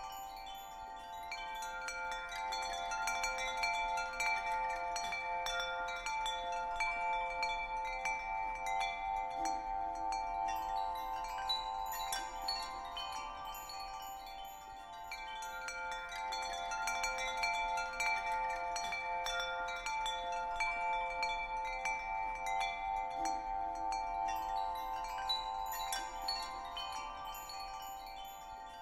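Relaxing background soundtrack of chimes ringing continuously, many overlapping sustained tones that swell and ease in a slow cycle.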